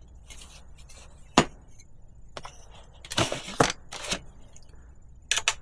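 A few sharp clicks and scraping knocks from handling the water bottle and bottle cage on a bike frame: one click, then a short cluster, then two quick clicks near the end.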